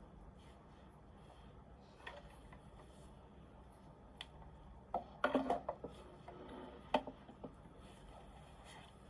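Scattered clicks and taps of computer keys being pressed, a few isolated ones and a short clatter of several about five seconds in, over quiet room tone.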